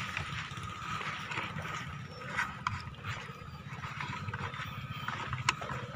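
Footsteps on rocks: irregular clacks and knocks as feet land on loose stones, over a steady low rumble.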